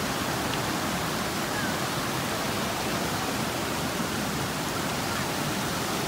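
Steady rushing of water from a small waterfall cascading over rock.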